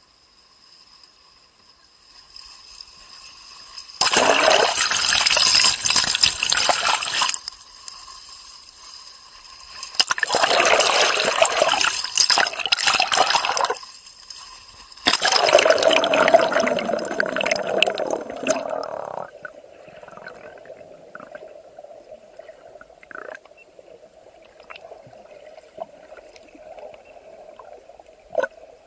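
Sea water splashing and rushing over a camera at the waterline in three loud spells, each a few seconds long. After that the camera is underwater: a muffled steady hum with scattered faint clicks.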